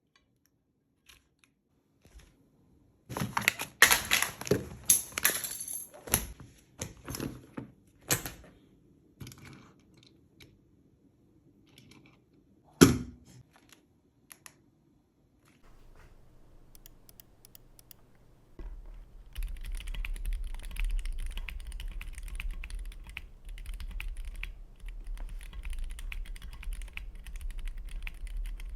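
Mechanical keyboard with lubed Gateron Red linear switches on a cardboard plate in a Tofu60 case, being typed on: scattered loud key presses at first, a single hard strike about 13 s in, then steady fast typing from about 19 s in over a low hum.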